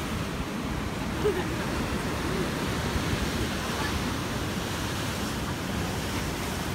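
Rough sea surf washing and breaking against the rocks below, a steady rushing noise.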